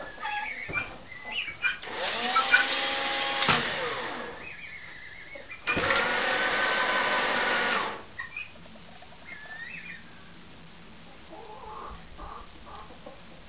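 Battery-powered drill motor of an automatic coop door running twice, winding the door along its cabinet slides. The first run is about a second and a half long, its pitch rising and then falling away as it stops. The second, near the middle, is a steady two-second whir that starts and stops abruptly.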